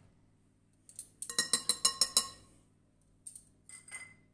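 Wire beaters of an electric hand mixer knocked against the rim of a ceramic bowl: a quick run of about eight ringing clicks about a second in, then a few softer knocks near the end.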